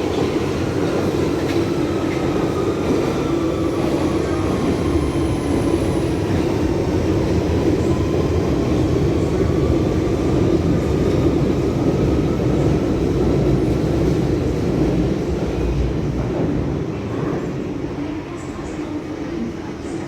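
A Central Line 1992 Stock tube train running: a steady, loud rumble with a faint whine that falls in pitch and then rises again. It grows quieter near the end.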